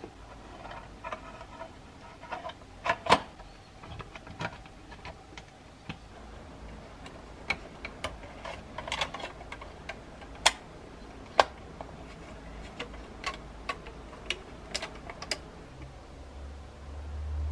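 Plastic parts of a 1:24 scale model truck cab being handled and fitted together by hand: irregular small clicks and taps of plastic, a few of them sharper. A low hum comes in near the end.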